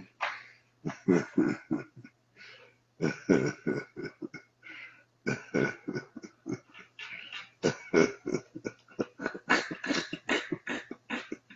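A man laughing hard: a long string of short, breathy bursts with brief pauses between them.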